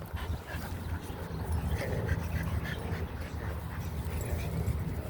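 Small dogs panting softly over a steady low hum.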